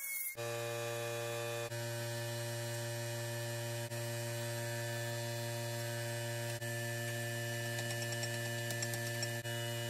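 A steady electrical hum with a low buzz and many even overtones, unchanging in pitch, with a few brief dips.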